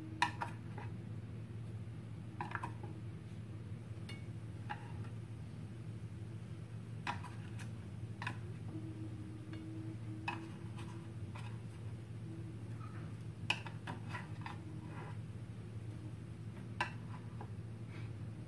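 Metal tongs clicking and tapping against a metal mini muffin tin as small baked pieces are picked out one at a time, in irregular short clicks over a steady low hum.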